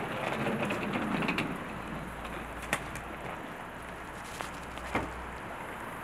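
Hard-shell wheeled suitcase rolling over pavement, a rough rumble that fades after about a second and a half, over steady street noise. Two sharp clicks follow later.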